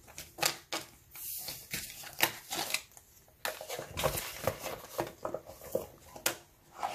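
Paper banknotes and clear plastic binder envelopes rustling and crinkling as they are handled, with many irregular small clicks and crackles.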